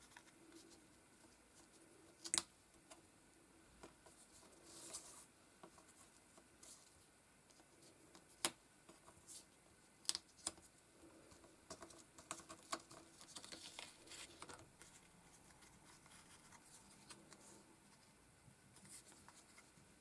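Faint taps, slides and rustles of paper jigsaw pieces being moved and fitted together on a cutting mat, with a few sharper clicks scattered through.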